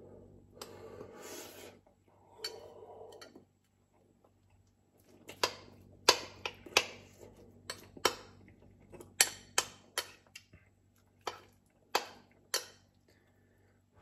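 Metal spoon clinking and scraping against a ceramic bowl: about a dozen sharp, irregular clinks through the second half. They follow two soft hissing sounds in the first few seconds.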